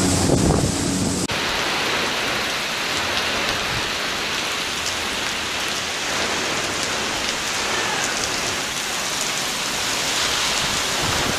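Wind buffeting the microphone with a low rumble for about the first second, then, after an abrupt cut, a steady hiss of heavy wind-driven rain in hurricane winds.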